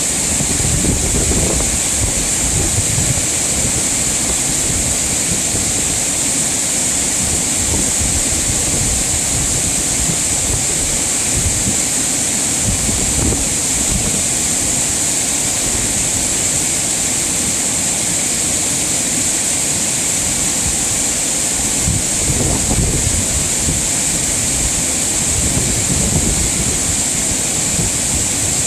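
Mountain stream water rushing over rocks, a steady loud hiss with uneven low rumbling underneath.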